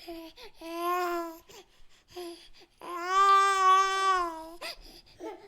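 A baby's voice: short babbling sounds, then a drawn-out wailing cry of almost two seconds about three seconds in.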